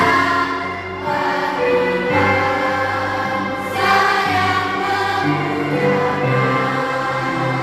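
A children's school choir singing, with long held notes that change pitch in steps.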